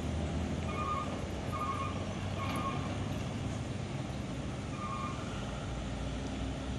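Short electronic beeps repeating about every 0.8 s, with a gap of about two seconds in the middle, over a steady low engine rumble.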